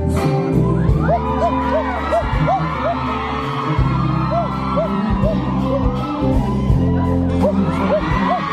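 Live pop song: a male singer singing into a handheld microphone over an amplified band backing with a steady bass line and a short melodic figure that repeats every fraction of a second.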